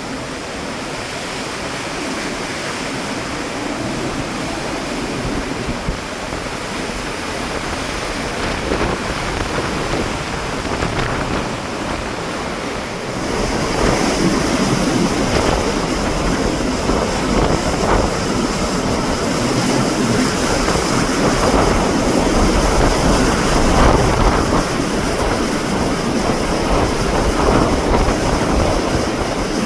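Typhoon wind and rain, the gusts buffeting the microphone with a low rumble; the wind gets stronger about thirteen seconds in.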